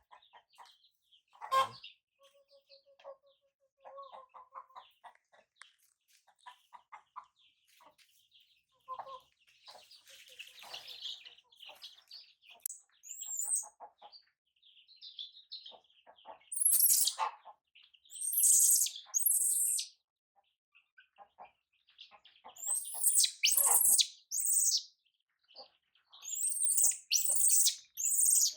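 Chickens clucking, with soft pulsed notes at first. In the second half, loud, very high-pitched shrill calls come in several bursts.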